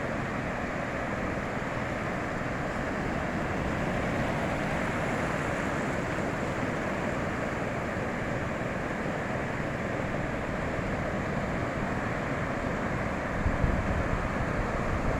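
Ocean surf washing steadily onto a beach. Near the end, wind gusts buffet the microphone with a low rumble.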